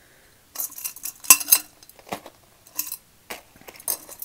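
A pile of costume jewelry being handled: metal chains, beads and bangles clinking and rattling against each other and the tabletop. It is a string of sharp, separate clinks that starts about half a second in, with the loudest ones about a second and a half in.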